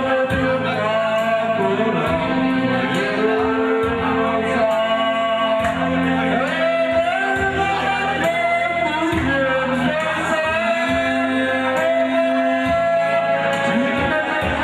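A man singing a song into a microphone over instrumental accompaniment with a steady beat.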